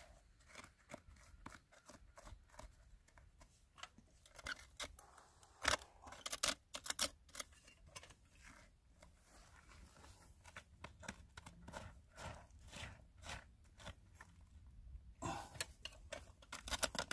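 Quiet, irregular scraping and picking of a small hand tool digging at hard-packed dirt and gravel, with scratches and clicks of grit and small stones. A few louder scrapes come about six seconds in and again near the end.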